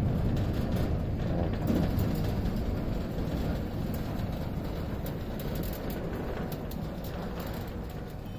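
Electric gearmotor driving a homemade sliding gate along its steel rack: a steady mechanical rumble as the leaf rolls, easing slightly toward the end.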